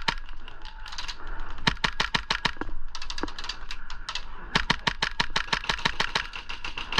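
Airsoft gun firing in rapid bursts of evenly spaced shots: a short burst at the start, another about two seconds in, and a longer string from about four and a half seconds on.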